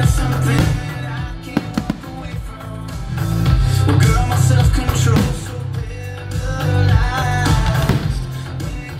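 Rock music with singing, guitar and drums.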